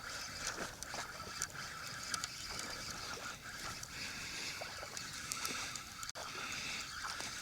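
Water lapping and splashing lightly around a kayak, with scattered light clicks and knocks.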